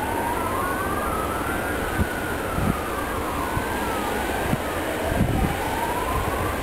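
A wailing siren rises and falls slowly, taking a few seconds for each sweep. Under it runs the low rumble of a diesel locomotive moving a train of tank wagons, with a few clunks.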